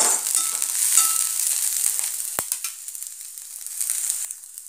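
Shredded cabbage and capsicum sizzling in hot oil in a kadhai. For about the first two seconds they are stirred and scraped with a steel spatula, then left to sizzle. There is one sharp knock about halfway, and the sizzle grows quieter near the end.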